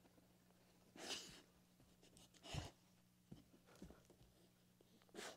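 A dog sniffing quietly at a hand held flat on the floor, nosing for a treat under it: short sniffs, the two clearest about a second and two and a half seconds in, with smaller ones between.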